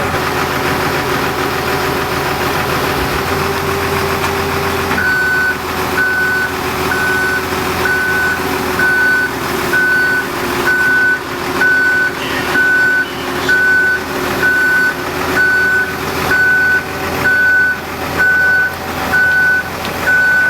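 A vehicle's engine running steadily, and from about five seconds in its reversing alarm beeping, about one beep a second.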